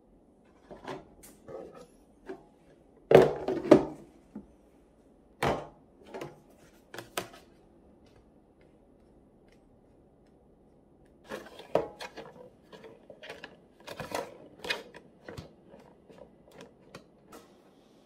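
White plastic storage boxes, an IKEA SOCKERBIT box and a thin perforated Daiso basket, handled and set down on a marble tabletop: scattered clicks and knocks of hard plastic, in small clusters with a pause of a few seconds in the middle.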